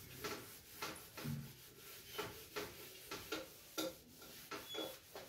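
Whiteboard eraser wiping across a whiteboard in short back-and-forth scrubbing strokes, about two or three a second.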